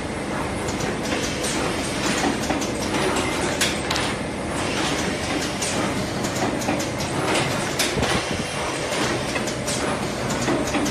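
Semi-automatic paper box gluing and forming machine running, with repeated sharp clacks from its forming mechanism over a steady mechanical hum.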